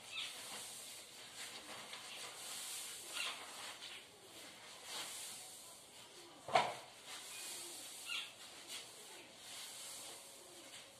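Steady hiss from a clip-on microphone, with soft rustling and one sharp knock about six and a half seconds in as its wearer moves.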